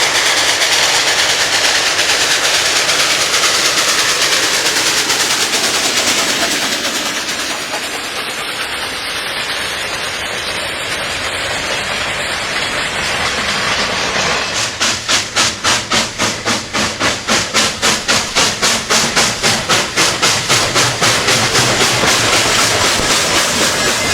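Train on the tracks: a loud, steady rushing noise, then from about two-thirds of the way through a fast, even beat of about three pulses a second.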